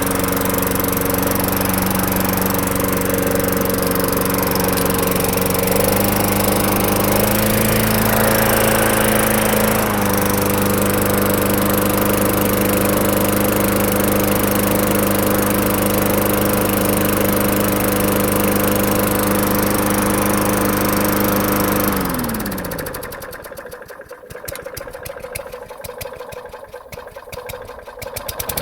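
Tecumseh lawn mower engine running at a steady speed, with a brief change in speed a quarter of the way through. About three quarters of the way in, it slows sharply and nearly dies, sputtering with rapid ticking for several seconds, then picks back up near the end.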